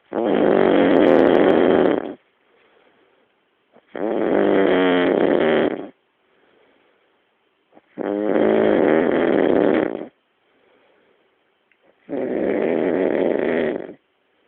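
A man snoring loudly in deep sleep: four long, rough snores of about two seconds each, one every four seconds, with faint breathing between them.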